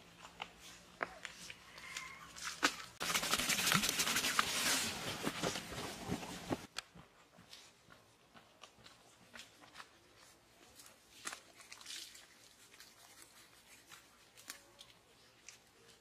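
Footsteps and crunching on damp earth and wet clay, scattered small crunches and clicks. About three seconds in comes a loud, dense crackling and crunching that lasts about three and a half seconds, then stops suddenly.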